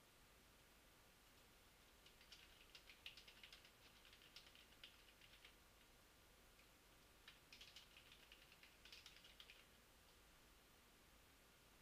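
Faint typing on a computer keyboard in two quick runs of key clicks, a few seconds each, with a pause between.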